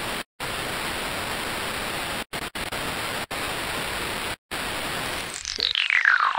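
TV-style static hiss for a glitch-effect logo intro, cutting out abruptly several times. From about five seconds in the static thins and a whistle glides steadily down in pitch.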